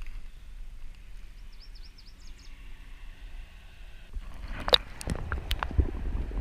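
A small bird gives a quick series of high, falling chirp notes about a second and a half in. From about four seconds in come sharp clicks and low thuds with rumbling, the loudest click a little later.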